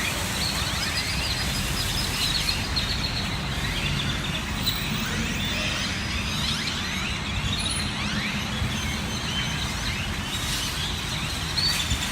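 A large flock of birds in trees, many calling at once in a dense, unbroken chatter of short chirps, over a steady low rumble.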